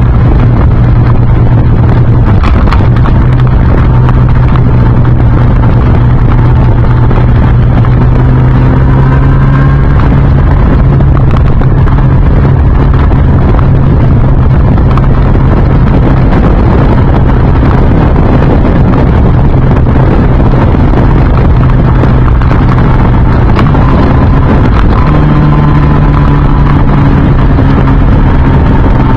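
Yamaha YZF-R1 (RN19) 998 cc inline-four running under way through an Akrapovic silencer with no catalytic converter, loud and steady. Its pitch steps up and down a few times with gear and throttle changes, with wind noise over the microphone.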